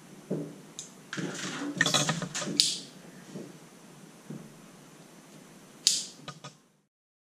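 Thin steel wires rattling and scraping against each other as they are handled and pushed into a black cog, with a busy run of clinks about a second in and a sharp click near the end, after which the sound cuts off suddenly.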